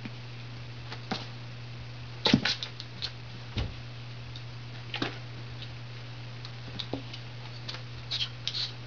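Ferret playing with a hollow plastic ball on carpet: scattered short clicks and knocks, with quick clusters a little over two seconds in and near the end, and a dull thump about three and a half seconds in, over a steady low hum.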